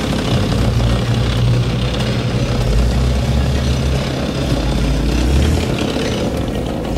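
Heavy machinery engine sound effect running with a deep, steady rumble, the sound of a tracked mining machine driving and cutting through rock.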